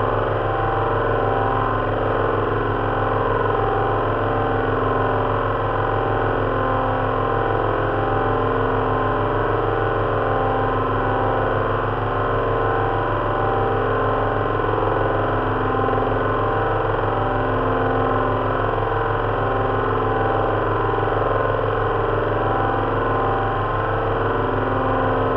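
Simulated drone of an Avro Lancaster's four Rolls-Royce Merlin V12 engines, built from speakers playing each cylinder's firing pulses and mixed with fan-heater noise for the propellers. It runs steadily at a constant engine speed.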